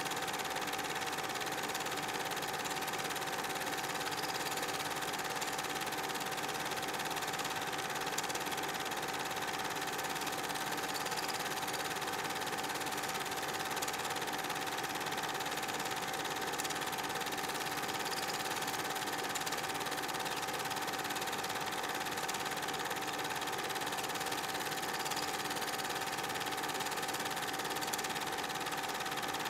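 8 mm film projector running: a steady mechanical whir with a constant high hum over an even hiss.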